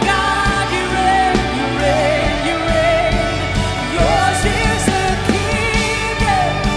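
Live contemporary worship music: female lead vocals, joined by other female singers, over electric guitar, bass guitar and drums.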